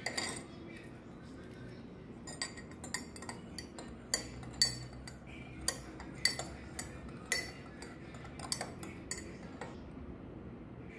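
Metal teaspoon stirring tea in a ceramic mug, clinking against the inside of the mug. One clink at the start, then a run of irregular clinks from about two seconds in until near the end.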